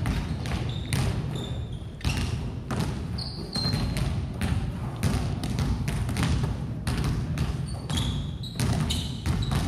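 Basketballs bouncing, slapping into hands and being passed in a gymnasium, many sharp knocks a second overlapping, with a few short high squeaks of sneakers on the court floor.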